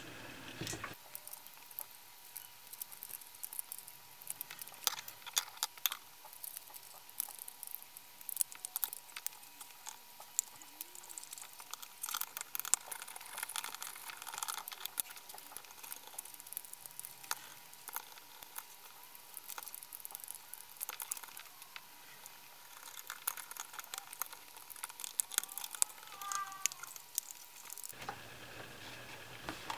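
Scattered small clicks, taps and scrapes of hard plastic housing pieces of a clamp-on current probe being handled and fitted together by hand during reassembly.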